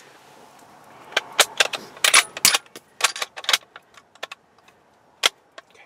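A quick run of sharp clicks and small rattles, like small hard objects being handled, for about two and a half seconds starting a second in. One more sharp click comes near the end.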